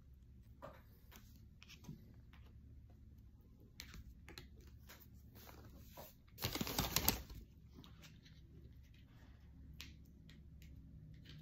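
Plastic spoon tapping and scraping as white rice is scooped out of a paper takeout carton into a plastic bowl: scattered small clicks, with one louder scrape-and-rustle burst lasting under a second a little past the middle.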